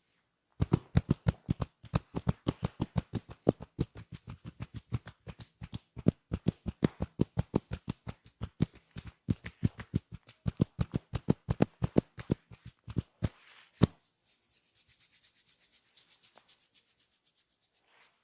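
Massage strokes: the barber's hands rubbing and patting the client's skin in a fast, even rhythm, about four strokes a second with a couple of short breaks, stopping about 14 seconds in. Softer, hissier rubbing follows for a few seconds.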